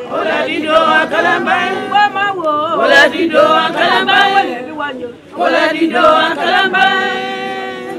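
Unaccompanied chant-like singing, with long held, wavering notes and a short break about five seconds in.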